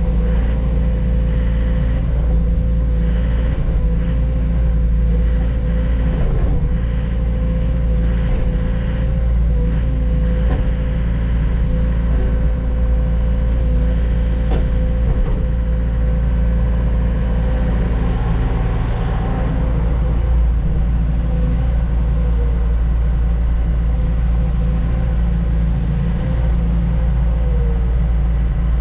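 Heavy diesel log truck engine running steadily: a deep, even drone with a thin steady whine above it.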